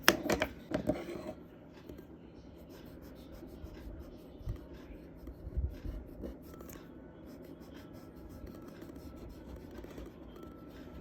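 Charcoal scratching and rubbing on paper: a burst of quick, louder strokes in the first second or so, then softer, steady rubbing.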